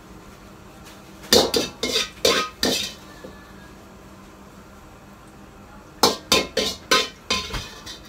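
Metal spatula clanging against a wok during stir-frying: two quick runs of sharp strikes, about five starting a second in and about six more near six seconds in.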